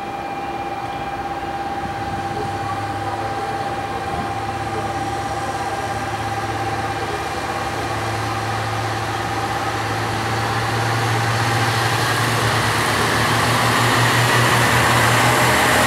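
JR West Kiya 141 track-inspection diesel railcar pulling away from the platform, its diesel engine running with a low hum that grows steadily louder as the train draws closer.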